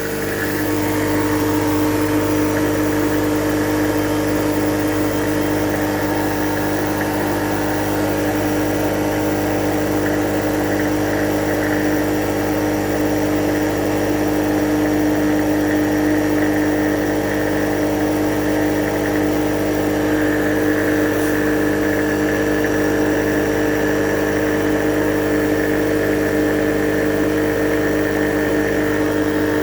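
Refrigerant recovery machine running steadily with a steady hum, pushing liquid refrigerant into an HVAC system to charge it.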